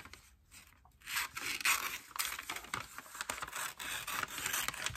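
Scissors cutting through a brown paper bag: a run of snips and crisp paper rustling that starts about a second in.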